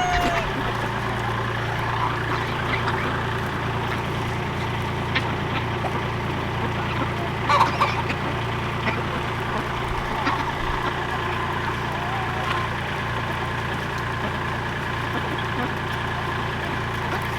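A vehicle engine idling steadily, with chickens clucking now and then over it.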